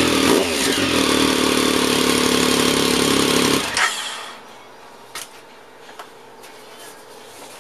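Engine exhaust running at idle after a quick rev near the start, then the engine is switched off a little under four seconds in. A few faint clicks follow.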